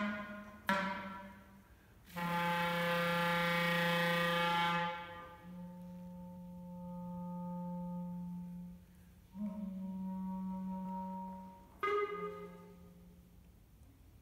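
Solo clarinet playing slow, long-held low notes: a few short accented notes at first, then a loud, bright held note about two seconds in, followed by softer sustained notes with short gaps between them.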